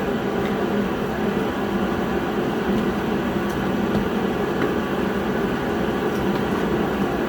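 Steady blowing rumble of a shop heater running, with a few faint clicks from work on the truck.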